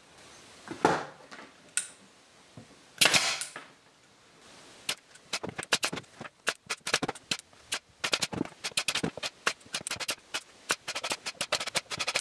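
Pneumatic brad nailer firing brads into thin wood strips: from about five seconds in, a rapid, irregular series of sharp pops, several a second. Before it come two brief scuffing noises.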